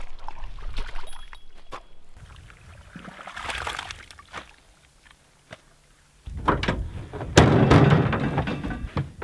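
Steel shovel digging into damp field soil, with scrapes and knocks and a swish as a load of dirt is tossed about three to four seconds in. After a short lull, a louder stretch of scuffing and knocks fills the last three seconds.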